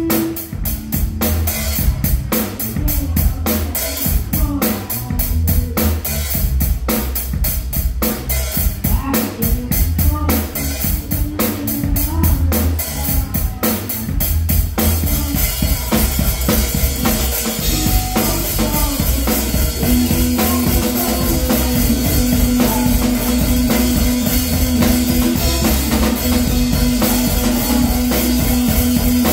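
A drum kit played live in a band: quick, even strokes on the drums and cymbals for the first fifteen seconds or so, then a more continuous cymbal wash. A repeating bass line runs underneath, and a held note comes in about twenty seconds in.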